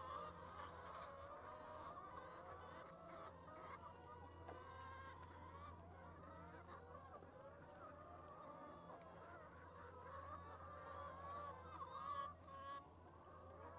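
A flock of pastured hens clucking and calling together, many overlapping voices in a steady chorus.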